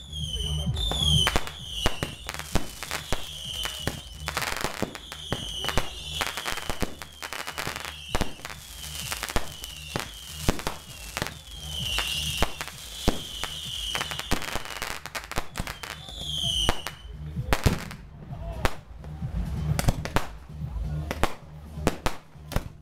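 Fireworks display: dense sharp bangs and crackles throughout, with a high whistle that falls in pitch repeating about once a second until near the end. Music with a heavy bass plays underneath.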